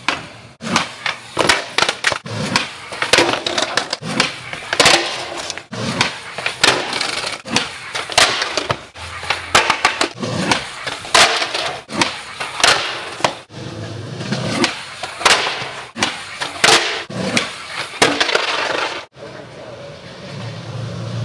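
Skateboard clattering and slapping on concrete steps and brick paving: many sharp knocks of the board hitting the ground and landing, with wheels rolling between them, over several attempts down a stair set. The sound stops abruptly a few times.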